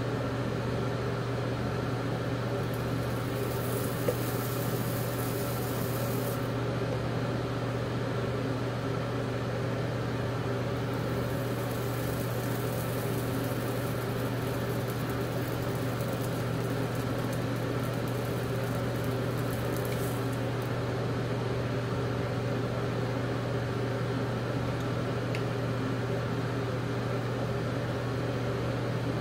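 Steady low hum of a small motor running, unchanged throughout, with a faint high hiss that comes and goes twice.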